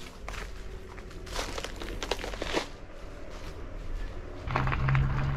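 Footsteps crunching through dry leaves and undergrowth, with brush rustling. A low steady hum comes in about four and a half seconds in.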